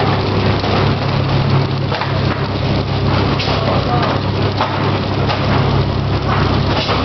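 PFM Hurricane horizontal flow wrapper running steadily: a constant low machine hum under a dense, irregular crackle and clatter from the wrapping mechanism and film.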